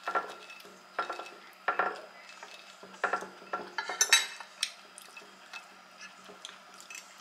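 Metal fork scraping and clinking against a plate as the last of the food is gathered up: several short scrapes and clicks about a second apart, the loudest about four seconds in.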